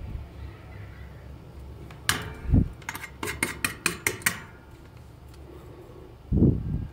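Soldering iron tapped against the metal tray of its stand: a run of about seven quick, sharp metallic clicks, with dull knocks on the bench before and near the end.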